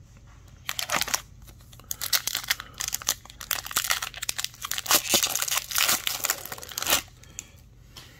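Plastic wrapper of an Upper Deck hockey card pack being torn open and crumpled by hand, crinkling in bursts that start just under a second in and stop about a second before the end.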